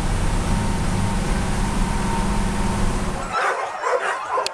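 Steady loud rumbling noise that cuts off about three seconds in. Harnessed sled dogs, husky-hound crosses, then break into excited yipping, yelping and barking.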